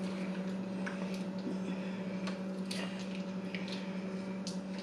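Scattered soft clicks, squishes and crinkles of hands handling food and condiment packets, over a steady low electrical hum.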